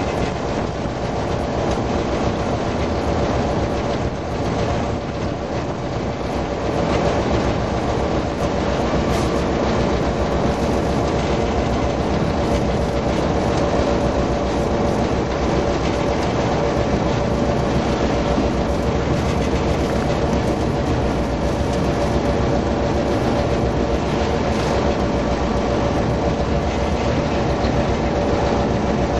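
EMD GP9 diesel-electric locomotive running steadily under way, heard from its cab: the 16-cylinder 567 diesel engine with a steady hum over it, and the wheels rolling along the rails.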